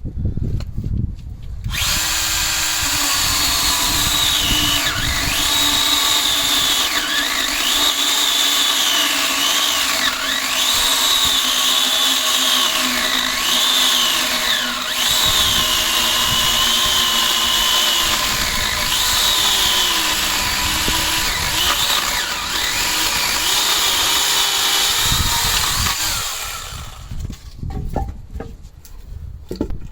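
Battery-powered Stihl tool's electric motor running with a high whine from about two seconds in, its pitch dipping briefly again and again, then stopping a few seconds before the end.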